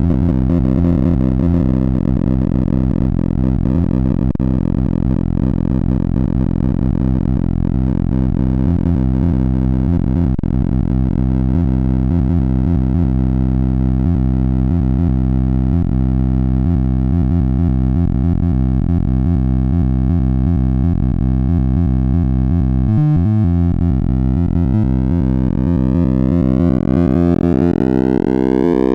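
Sorting-algorithm sonification from the Sound of Sorting program: many overlapping synthesized tones, one for each array access, forming a dense, buzzing chord. About 23 seconds in the texture breaks up and the tones begin to glide upward in pitch in a rising sweep.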